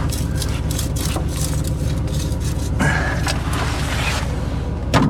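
An engine running steadily, with a low even rumble. Scattered metallic clanks and scrapes sit over it, and there is one sharp loud knock near the end.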